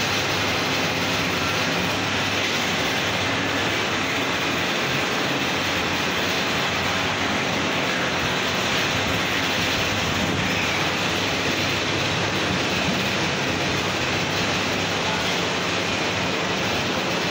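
Steady, even rushing noise that holds at one level throughout, with no separate knocks or rhythm.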